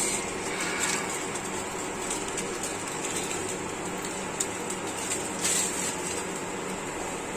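Induction cooktop running with a steady hum and hiss as water heats around noodles in a stainless steel bowl. A brief rustle about five and a half seconds in.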